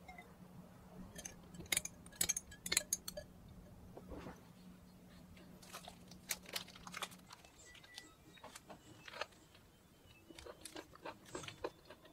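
Crinkling and crackling of the paper wrapped around a tortilla sandwich as it is picked up and unwrapped, in short bursts. Near the end a washing machine's end-of-cycle alarm beeps faintly, signalling the laundry is finished.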